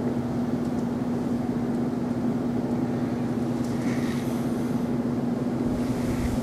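Steady room hum: an even background hiss with one constant low tone underneath.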